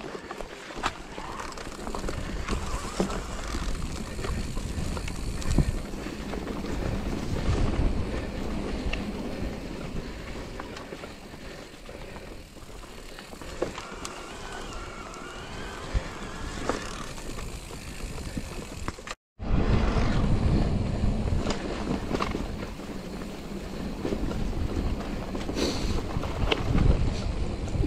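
Electric mountain bike ridden along a dirt singletrack: wind buffeting the microphone, tyres rolling over dry ground and leaves, and scattered knocks and rattles as the bike goes over bumps. The sound cuts out for a moment about two-thirds of the way through.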